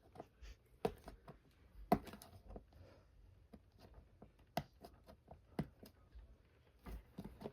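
Scattered light taps and clicks of hands handling a cardboard motherboard box, picking at its tape.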